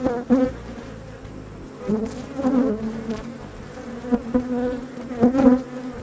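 Honeybees buzzing in flight around an opened hive, several passing close to the microphone and swelling louder then fading, about four times, over a steady hum from the colony. The bees are stirred up and defensive, stinging the beekeeper.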